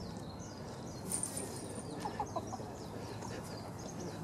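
Wild birds chirping repeatedly, with a thin high call about a second in and a quick run of four short lower notes about two seconds in.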